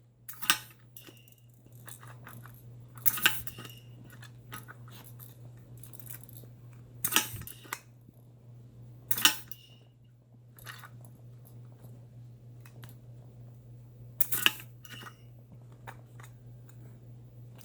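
Small hard plastic clicks and knocks from handling a toy's bubble bottle while trying to snip open its tip: five or so sharp separate clicks spread out with long pauses between, over a steady low hum.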